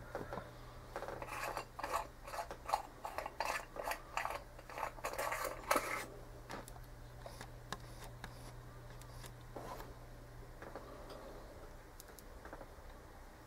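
Small metal fly-tying tools clicking and scraping in quick succession as the tier works at the vise, for about the first six seconds; after that only a faint steady low hum remains.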